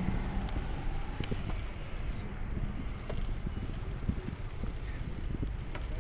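Riding a bicycle: wind buffeting the microphone over a steady road rumble, with scattered short rattles and clicks from the bike.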